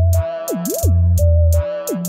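Funky hip hop instrumental beat: heavy bass that drops out briefly twice, a higher line sliding down and back up, and regular hi-hats.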